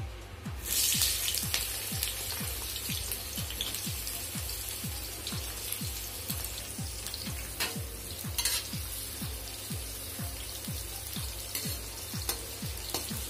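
Sliced pointed gourd (parwal) dropped into hot oil in an aluminium kadai: a sudden loud sizzle about a second in settles into a steady frying hiss, with a couple of brief louder crackles around the middle.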